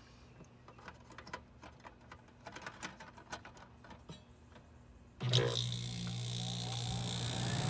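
Goodman GSX14 air-conditioner condensing unit starting up about five seconds in: the compressor and condenser fan switch on at once into a steady, loud hum, after a few seconds of quiet with faint ticks.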